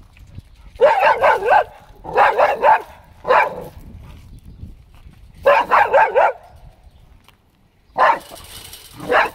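A dog barking in quick volleys of three to five barks, with pauses of a second or two between volleys and single barks near the end.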